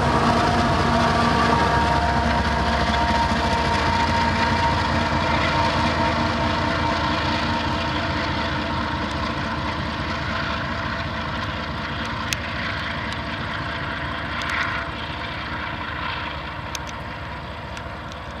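GE ES44AC diesel-electric locomotives running under load with a coal train, a steady engine drone with several held tones that fades gradually. A few sharp clicks are heard in the second half.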